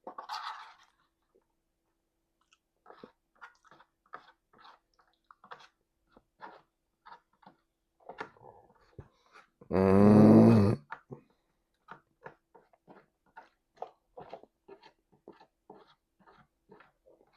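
A person chewing food messily with an open mouth, wet smacking clicks about twice a second. About ten seconds in comes one loud, deep burp lasting about a second, the loudest sound of the stretch.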